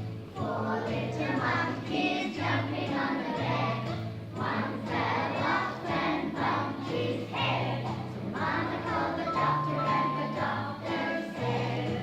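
A children's song: voices singing in a steady rhythm over a bass line.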